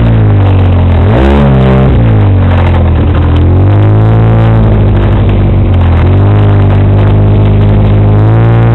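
Off-road vehicle engine running loud and close on a dirt trail, its pitch rising and falling again and again as the throttle is worked over the rough ground.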